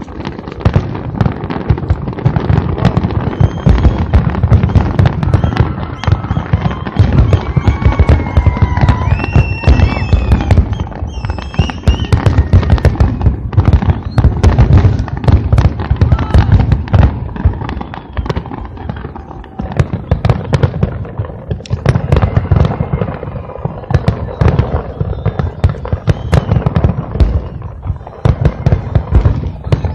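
A fireworks display going off in a dense, continuous barrage: rapid overlapping booms with heavy low rumble and crackle.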